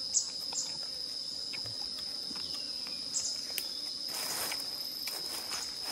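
Steady high-pitched insect drone, one continuous whine held without a break, with scattered light clicks and a short rustle about four seconds in.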